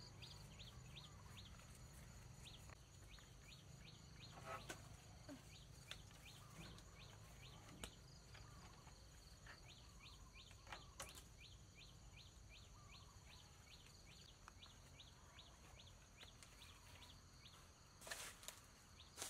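Faint rural outdoor ambience: short calls repeated about three times a second over a steady high-pitched drone, with a few soft knocks and a brief louder rustle near the end.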